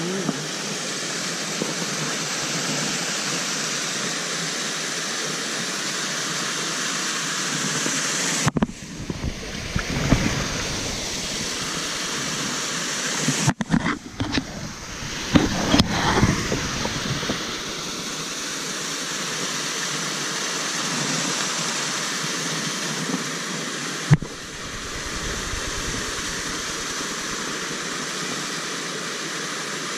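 Small waterfall on a creek, spilling steadily into a pool with a constant rush of water. From about eight to sixteen seconds in, rustling and bumping of the camera against clothing cover it.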